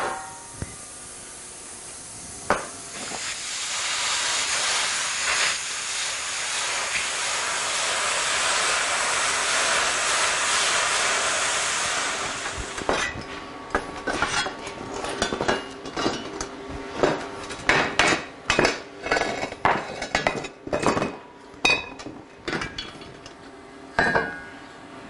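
Lotos LTPDC2000D plasma cutter cutting 1/8-inch steel plate: a steady hiss of the arc and air for about ten seconds that cuts off abruptly. Then a run of sharp metallic clanks and clinks as the cut steel pieces are handled on the bench.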